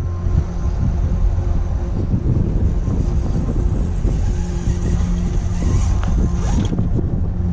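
Wind rumbling on the microphone over the faint, intermittent whine of a scale RC crawler's electric motor and gearing as the Axial SCX10.2 creeps slowly over rock.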